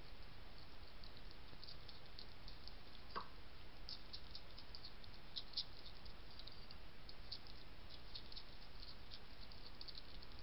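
European hedgehogs eating dry kitten biscuits from a dish: quick, irregular crunching clicks over a steady hiss. One brief falling sound comes about three seconds in.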